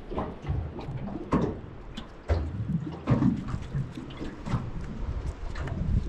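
Hands handling a fish burger on a wooden chopping board, pressing the bun together and lifting it: soft irregular knocks and rustles.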